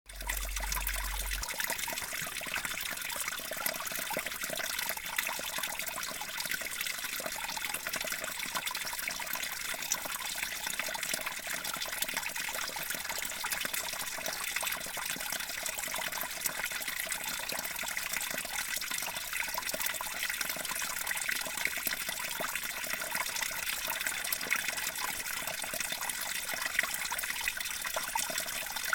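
Meltwater dripping and trickling from muddy icicles into a shallow pool below: a steady patter of many small drips.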